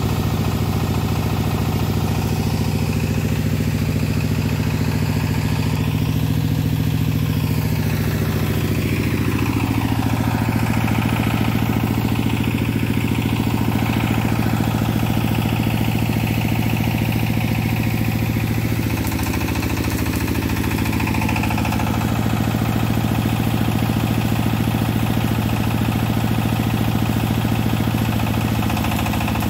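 Small portable engine-driven generator running steadily, its note shifting a little a few times as the load changes.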